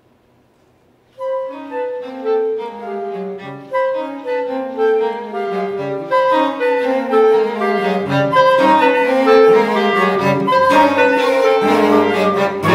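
Flute, clarinet, violin and cello playing contemporary chamber music. After about a second of near silence the quartet comes in suddenly with quick runs of notes that keep stepping downward, growing louder and denser toward the end.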